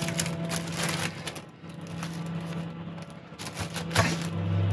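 Light rustles and knocks from handling food on a plastic sheet, over a steady low hum. A much louder low hum sets in near the end.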